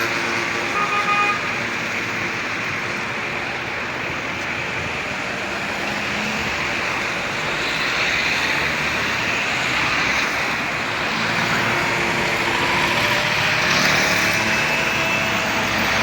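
Steady road traffic: a continuous rush of cars going by.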